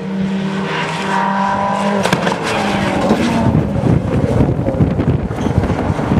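Rally car engine held at high revs on a steady note, then about two seconds in a sharp crack and the sound turns rough and crackling, with many short pops, as the car comes through close by.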